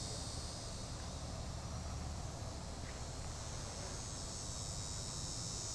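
A steady, high-pitched chorus of insects trilling, holding level without a break.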